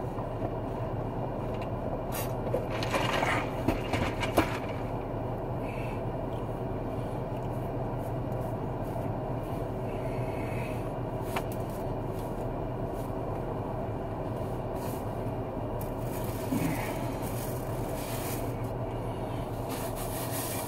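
Steady low hum inside a parked car, with scattered scrapes, rustles and light clicks from handling a paper napkin and takeout food packaging, mostly a few seconds in and again near the end.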